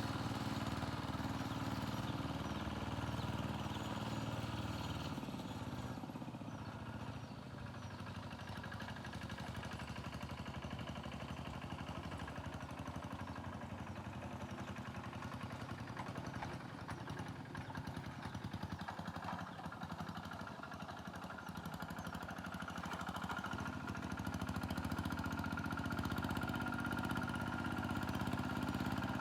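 Tractor engine running hard, dropping back about five seconds in and picking up again near the end.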